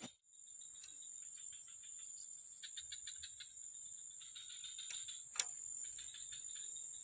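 Insects chirring: a steady high-pitched drone with several trains of rapid pulsing calls a little lower in pitch. A sharp click comes about five and a half seconds in.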